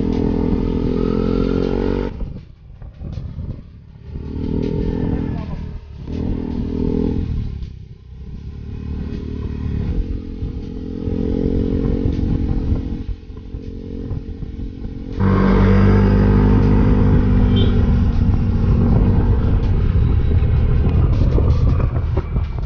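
Yamaha scooter engine running on the move, its pitch rising and falling with the throttle and easing off several times. About two-thirds of the way through, it jumps abruptly to a louder, steadier run.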